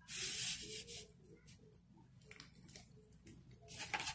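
Paper crinkling and rustling loudly for about a second as a wrapper is pulled from behind a rotisserie chicken, then quieter handling sounds and a short sharp crackle near the end as hands grip the chicken.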